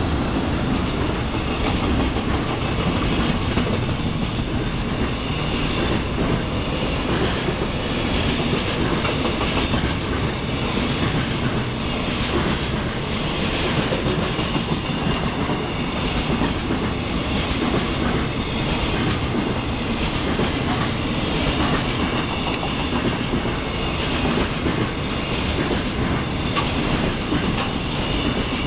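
Long container freight train passing at speed: the wagons' wheels rumble and clatter over the rail joints in a steady, repeating beat.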